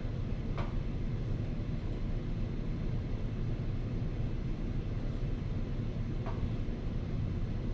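Steady low rumble of room ventilation, with two faint clicks, about half a second in and about six seconds in.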